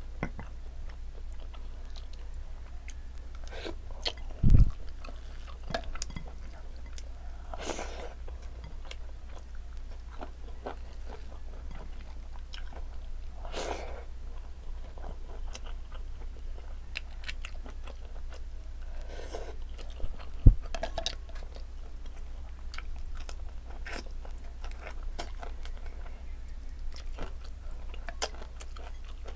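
Close-miked chewing and mouth sounds of someone eating rice and fried fish by hand, with many small wet clicks and smacks. Two louder low thumps come about four and a half and twenty seconds in, over a steady low hum.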